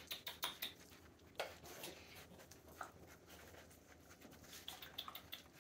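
Faint scratching and light clicking of Rhodesian Ridgeback puppies' paws and claws as they scrabble about on blankets and a hard floor, with a few brief faint squeaks.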